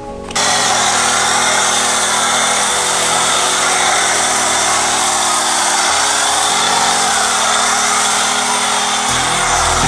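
Car-washing power equipment running steadily with a loud rushing hiss and a motor hum that shifts pitch in small steps. A deeper low rumble joins about nine seconds in.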